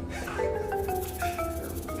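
Background music: a light tune of short, bell-like mallet notes, with a short run of notes stepping down in pitch about half a second in.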